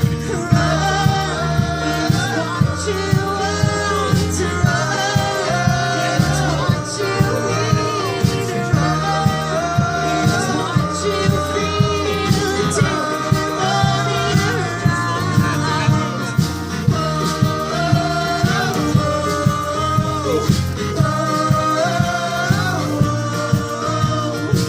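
Music: a song with a steady beat and a sung melody line.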